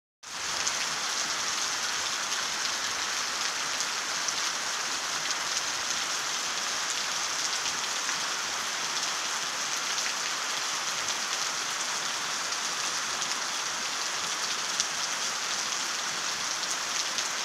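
Steady rain falling on grass and foliage, an even hiss.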